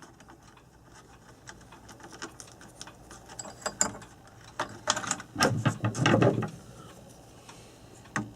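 Small metal parts and hand tools clicking and rattling as wiring is worked loose inside an old electric clock, with scattered clicks and a busier run of knocks and rattles about five to six and a half seconds in.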